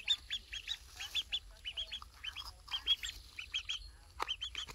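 Duckling peeping over and over in short, high calls, about five a second. There is a light click near the end.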